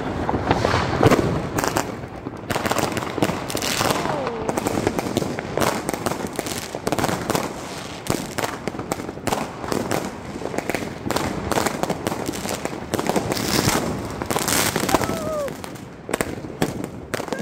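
New Year's Eve fireworks: a firework battery lit on the ground fires a string of shots into the sky, among dense bangs and crackles from fireworks all around. A couple of whistles falling in pitch cut through.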